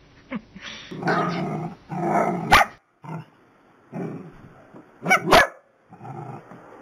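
Small dogs barking, a string of short barks about a second apart.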